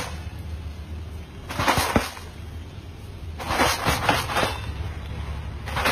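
Crisp potato chips rustling and crunching as they are tossed in a large tub, in bursts about every two seconds. A steady low hum runs underneath.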